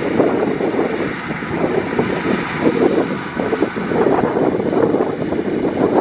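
Kubota DC105X rice combine harvester running as it cuts rice: a steady, noisy drone from its diesel engine and threshing machinery, rising and falling slightly in loudness.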